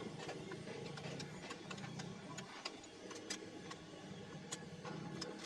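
Workshop sounds: scattered light clicks and taps, irregularly spaced, over a steady low hum.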